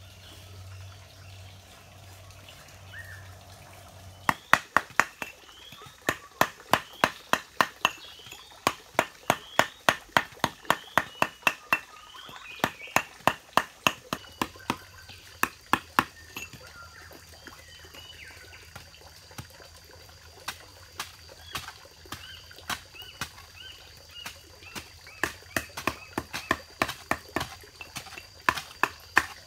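Metal tool striking a concrete slab by hand: sharp knocks in quick runs of several a second, starting about four seconds in. Birds chirp throughout, and a thin steady insect whine comes in about halfway through.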